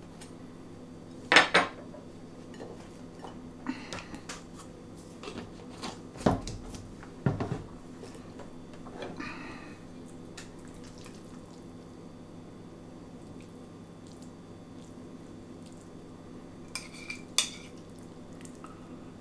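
A metal knife and spoon clinking and scraping against a ceramic plate and a glass bowl as mayonnaise is spread on bread rolls and pulled pork is spooned out of the bowl. Scattered single clinks, the loudest about a second and a half in and a quick pair near the end, over a faint steady hum.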